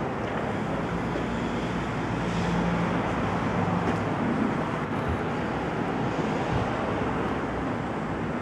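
Steady rushing background noise, with a faint low hum partway through.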